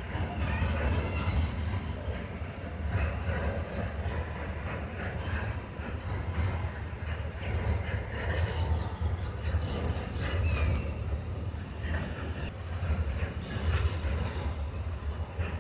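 Container freight train wagons rolling past: a steady low rumble of wheels on rail with scattered clicks and clanks.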